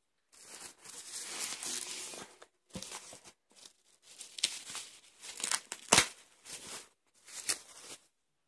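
Plastic bubble wrap crinkling and rustling as it is handled and pulled open, in several bursts, with one sharp snap about six seconds in.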